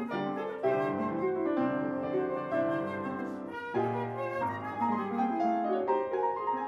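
Flute and grand piano playing together: a flute melody over fast-moving piano chords, with many quick notes.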